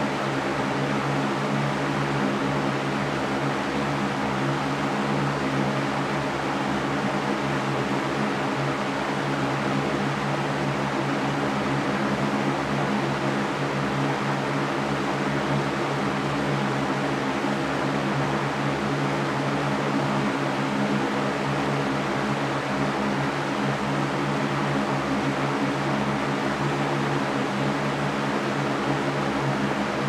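Electric fan running steadily: an even rush of moving air with a low, unchanging hum beneath it.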